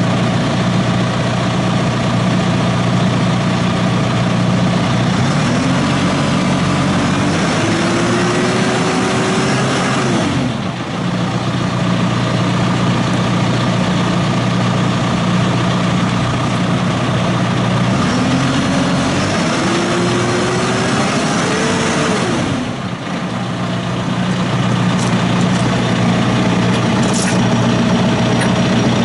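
2020 John Deere 6120E tractor's four-cylinder diesel engine idling steadily, rising in pitch twice for a few seconds each, about five seconds in and again near the middle, before dropping back to idle.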